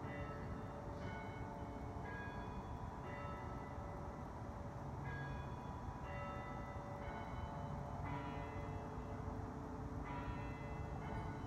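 Bells ringing, a fresh note struck every second or so and left to ring on, over a steady low hum.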